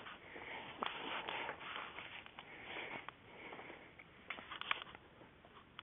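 Faint rustling and handling noise with scattered clicks, heard over a telephone line.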